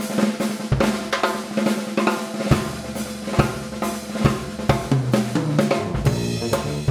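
Pearl drum kit played in a solo: snare, bass drum, hi-hat and cymbal hits in a dense rhythm, with heavy low drum hits among them.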